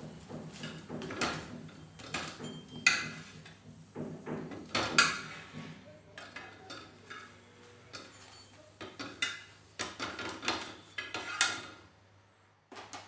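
Metal spatula scraping and clinking on a flat iron griddle (tawa) as a roti is turned and lifted, in scattered strokes, with a cluster of them about nine to eleven seconds in.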